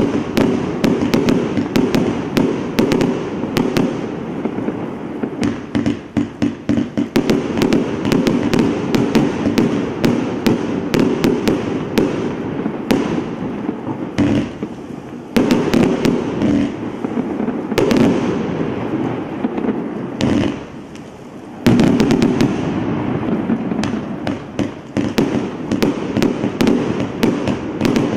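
Hallmark Relentless compound firework cake firing a rapid, continuous barrage of shots and bursting stars. About twenty seconds in it eases off for a second before starting again abruptly.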